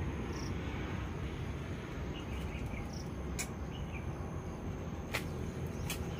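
Outdoor ambience: a steady low rumble, with a few short bird chirps scattered through and three sharp clicks in the second half.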